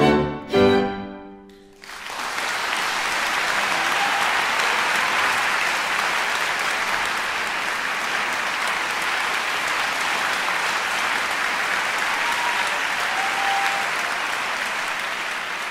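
Violin and piano play the last two loud chords of a sonata, which ring out and die away. About two seconds in, the audience breaks into steady applause that carries on and begins to thin near the end.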